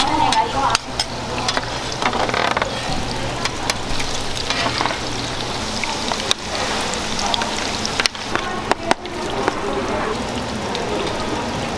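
Mung bean pancakes (bindaetteok) frying in oil on a griddle: a steady sizzle with scattered clicks and scrapes of cooking utensils, over a faint steady low hum.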